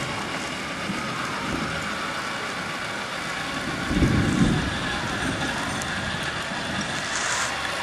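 Engine sound effect of an M1A2 Abrams, played from a 1/16 RC tank's on-board mp3 sound module: a steady, noisy running sound with a brief louder swell about four seconds in.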